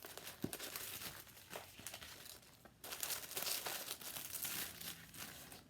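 Paper packaging crinkling and rustling as a gift box is unpacked by hand, with a few light clicks of handling. The rustling grows louder about halfway through.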